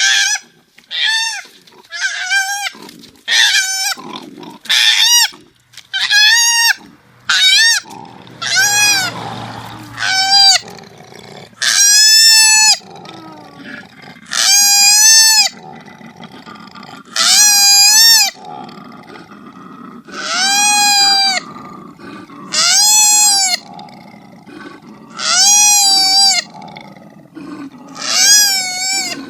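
Koala calling: a long series of loud, arching cries, about one a second at first, then one every two to three seconds, each lasting about a second, with a lower rasping sound between them.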